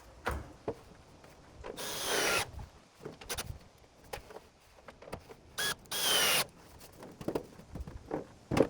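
Power drill driving screws into a wooden roof beam: two bursts, about two seconds in and about six seconds in, with short knocks and handling between them.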